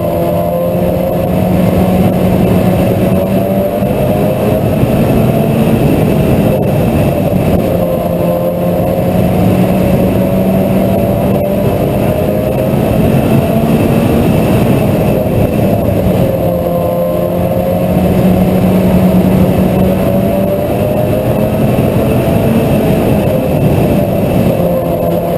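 Mini stock race car engine running hard. Its pitch dips and climbs again about every eight seconds as it lifts for the turns and accelerates down the straights.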